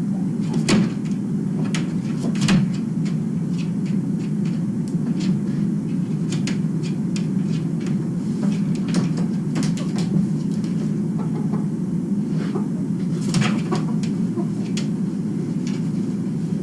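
Scattered light clicks and knocks at irregular moments over a steady low hum.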